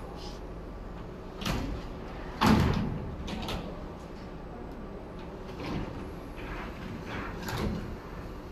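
Metal clamping frames of a Richpeace quilting machine's loading table sliding along their rails and knocking into place: a handful of clunks, the loudest about two and a half seconds in, over a steady factory hum.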